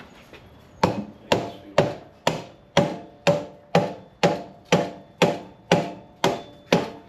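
Rhythmic hammer strikes, about two a second and a dozen in all, each with a short metallic ring. They are tapping the rear axle of a Harley-Davidson Dyna Super Glide through the swingarm, spacers and wheel hub.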